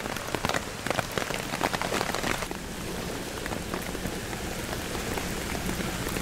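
Rain falling on a silnylon poncho tarp overhead: many irregular drop hits over a soft hiss, thicker in the first couple of seconds. A low steady hum runs underneath, stronger from about halfway.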